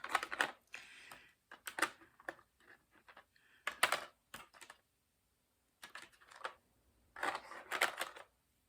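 Scattered light clicks, taps and rustling of small craft supplies being handled on a tabletop, coming in short clusters with quiet gaps between them.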